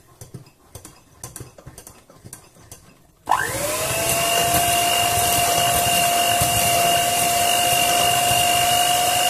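Electric hand mixer switched on about three seconds in, its motor rising quickly to speed and then running steadily with a high whine as the beaters mix batter. Before that there are only faint handling clicks.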